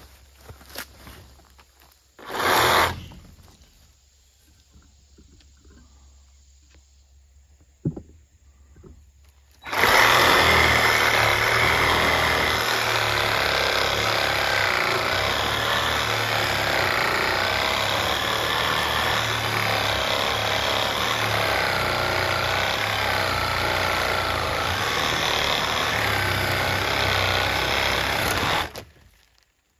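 A brief loud noise about two seconds in, then about ten seconds in a Bauer 20-volt cordless brushed reciprocating saw starts and runs steadily for about nineteen seconds, its blade cutting through an old weathered wooden board, before stopping abruptly near the end.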